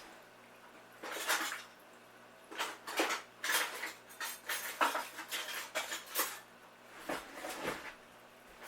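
Kitchen utensils and cookware clattering and clinking in a string of irregular knocks, as they are rummaged through in search of a spatula.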